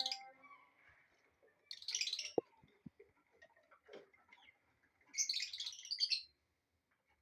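A colony of lovebirds chirping: a short burst of shrill chirps about two seconds in and a longer burst about five seconds in, with a few faint clicks between.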